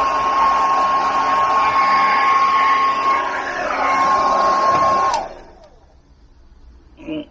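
Blow dryer running with a steady high whine over its air rush, used to dry a freshly bathed dog's wet coat. It is switched off about five seconds in, the whine falling as the motor spins down. A brief pitched sound follows near the end.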